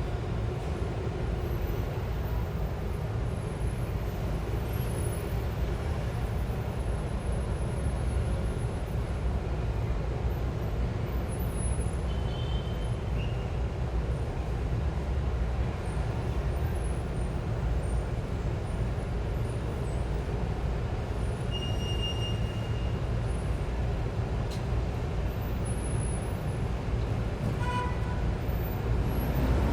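City street traffic heard from eight floors up: a steady low rumble of engines and tyres, with a few brief high tones rising out of it.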